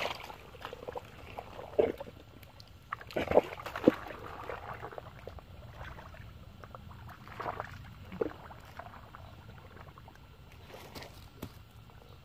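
Shallow muddy stream water sloshing and splashing irregularly as hands work through it, with the loudest splashes about two seconds in and again three to four seconds in.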